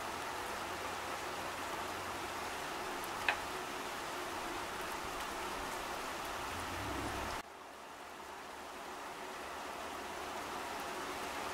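Steady hiss of rain falling on foliage, with one sharp drip about three seconds in. About seven seconds in the sound abruptly turns quieter, then slowly builds back up.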